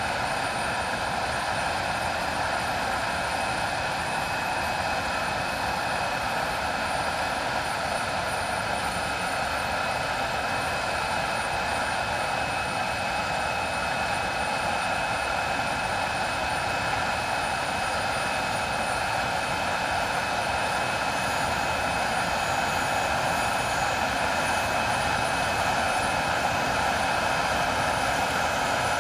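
English Electric Lightning's Rolls-Royce Avon turbojets running steadily on the ground: a constant jet roar with a high, steady whine, growing slightly louder in the later part.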